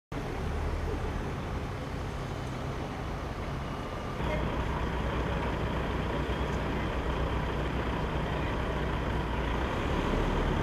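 Steady low rumble of idling vehicle engines under open-air background noise, stepping louder about four seconds in.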